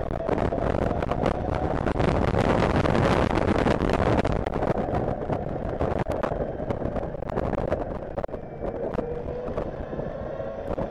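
Wind rushing and buffeting over the fairing-mounted camera of a Zongshen electric racing motorcycle at speed, with the electric motor's faint whine underneath. About eight seconds in the wind eases and a rising motor whine comes through.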